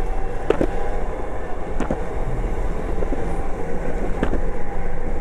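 Skateboard wheels rolling over asphalt: a steady rumble with a few sharp clicks.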